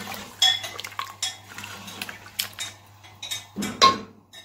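Metal spoon knocking and clinking against a steel cooking pot while stirring a thin chicken and potato curry, a run of sharp clicks with a ringing tone, the loudest knocks near the end.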